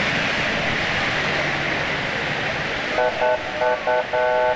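Steady rushing street noise, then about three seconds in a car horn honks four short times and once longer.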